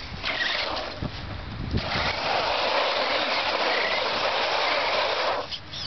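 Radio-controlled truck driving over rough ground: a steady rushing noise that starts about two seconds in and stops shortly before the end, after a shorter burst near the start.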